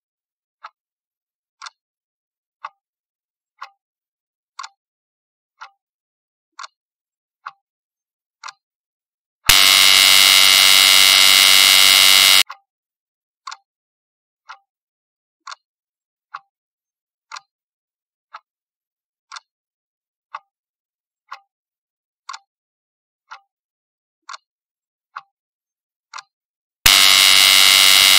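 Countdown-timer clock sound effect ticking about once a second, then a loud buzzer for about three seconds as the timer runs out. The ticking starts again and runs about fourteen seconds before the buzzer sounds again near the end.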